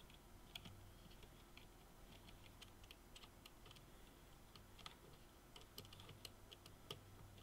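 Faint, irregular small clicks, a few a second, of a screwdriver and wire ends being worked into a terminal block. A low steady hum lies under them at near-silent level.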